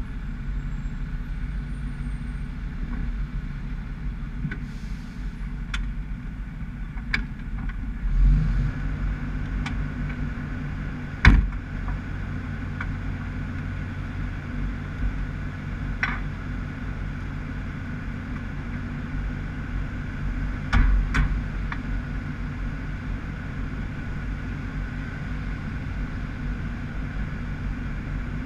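Fire truck engine running as the truck drives slowly, its note stepping up about eight seconds in. Several sharp knocks, the loudest about eleven seconds in and another pair around twenty-one seconds.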